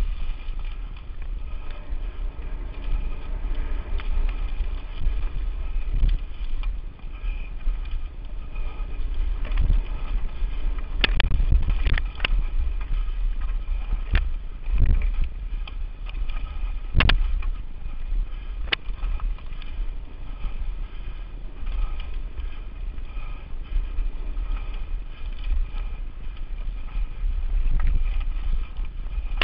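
A Lapierre Spicy 516 full-suspension mountain bike rattling down a rough dirt trail at speed, with wind buffeting the camera microphone as a steady low rumble. Several sharp knocks of the bike hitting bumps come in the middle stretch.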